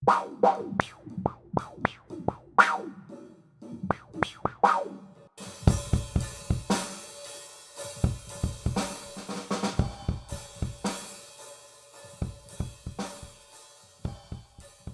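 Acoustic drum kit played live: scattered drum hits and fills at first, then from about five seconds in a full beat of kick drum, snare and cymbals, thinning out near the end.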